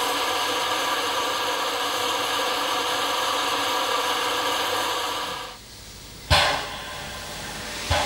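Steam hissing steadily from the open end of a coach's steam-heating hose, dying away about five and a half seconds in. Then a narrow-gauge steam locomotive gives two sharp exhaust chuffs, about a second and a half apart, as it gets under way.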